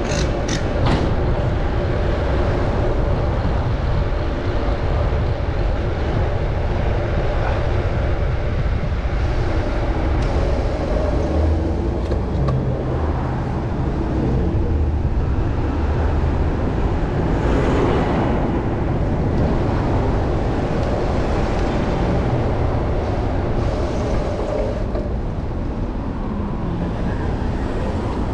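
City traffic and wind rumble heard from a moving bicycle, with vehicles running alongside. The noise is steady and loud, and a faint held engine-like tone fades out near the end.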